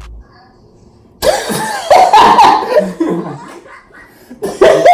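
Loud laughing mixed with coughing, starting about a second in and breaking out again near the end.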